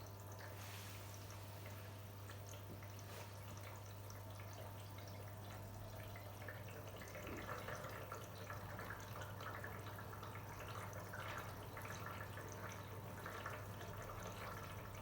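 Arçelik 3650 SJ washing machine taking in water: water running and dripping into the drum during the fill, over a steady low hum, a little louder in the second half.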